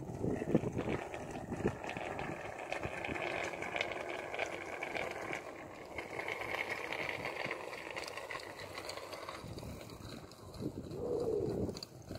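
Outdoor ambience: birds calling over an uneven rumble of wind on the microphone.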